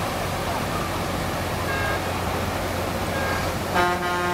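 Steady rush of floodwater with a vehicle engine running, and a horn sounding briefly near the end.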